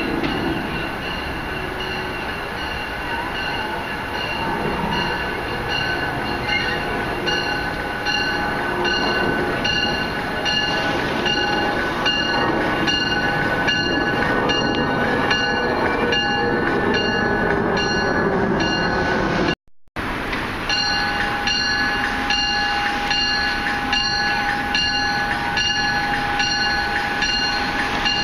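NJ Transit Comet IV cab car arriving at a station platform, its bell ringing about twice a second over the rumble of the train coming in. The sound cuts out for a moment near the end.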